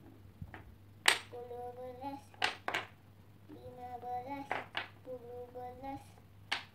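Painted wooden blocks clacking as they are picked up and set down on the table, about six sharp knocks, the loudest about a second in. Between the knocks a child hums a tune softly.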